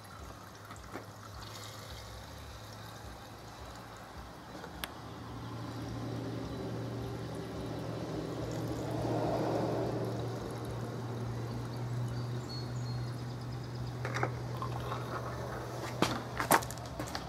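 Gasoline pouring from a plastic gas can into a push mower's fuel tank, the flow building about five seconds in and strongest around the middle. A few knocks near the end as the can is lifted away.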